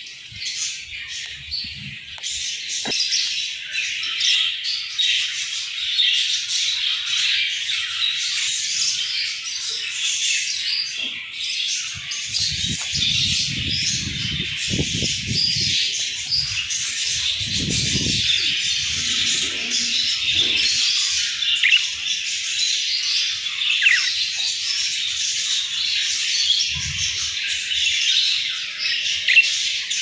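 A flock of budgerigars chirping and chattering together, a dense, continuous chorus of many overlapping high chirps.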